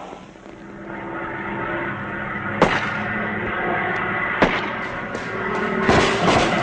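Gunfire: two single shots about two and a half and four and a half seconds in, then a rapid burst of shots near the end, over a held music chord that grows louder.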